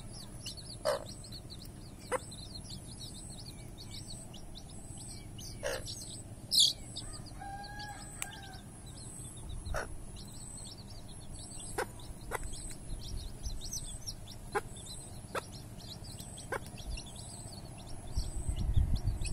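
A brood of chicks peeping without pause, many short high cheeps overlapping, while the mother hen gives an occasional short cluck as they feed. A low rumble comes in near the end.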